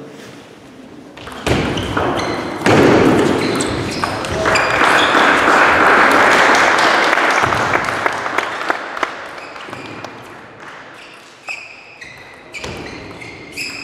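Table tennis ball being hit back and forth in a rally: short, light pops of the celluloid ball off the rackets and table, with a loud swell of noise in the hall that is loudest about three to seven seconds in.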